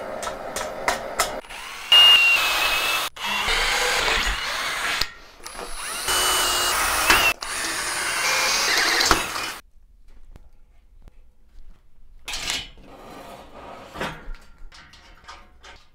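A few hammer strikes on a torch-heated steel flange, then a cordless drill boring through steel box section in four runs with a high whine. The drilling stops about halfway through, and after a short quiet come light metallic clicks and rattles.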